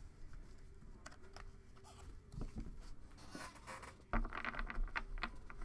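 Light rustling and scattered small clicks of trading cards and packs being handled, with a louder stretch of rustling and knocking starting about four seconds in.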